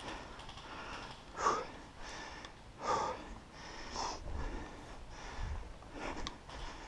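A person breathing hard close to the microphone, with three louder breaths in the first four seconds, over footsteps and rustling in dry grass.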